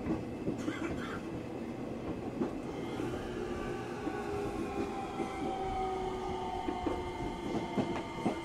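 Onboard running sound of the E231 series 900-subseries motor car MoHa E231-901: its Hitachi IGBT VVVF inverter whine, several tones falling slowly in pitch as the train slows, over the steady rumble of wheels on rail with scattered short clicks.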